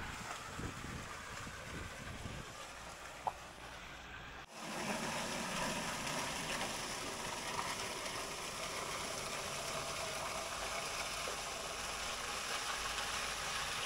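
Water draining out of an emptied water tank and running away over the ground, a steady rushing hiss. The sound drops out briefly about four and a half seconds in, then carries on more evenly.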